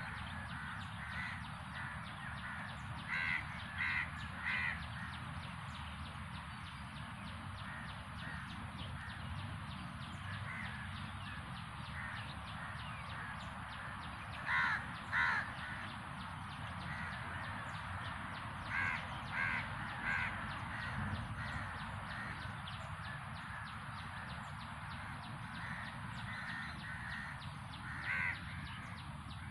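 A bird calling in short, loud calls in groups of two or three, spaced several seconds apart, over a steady background hiss.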